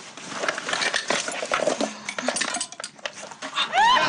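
Rummaging through a bag of belongings: clothes rustling and small objects such as plastic bottles clicking and knocking as they are pulled out and passed from hand to hand. Near the end, a sound of quick rising whoops begins.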